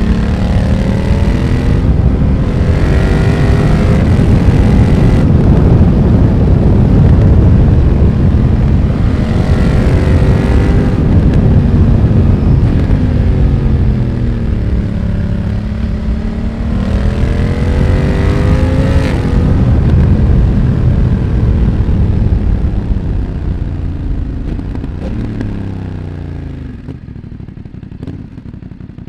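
BMW F900R's parallel-twin engine through a Mivv aftermarket exhaust, accelerating hard through the gears: the pitch climbs and drops back at each shift several times, with heavy wind rush. Near the end it eases off and slows, with a few crackles on the overrun.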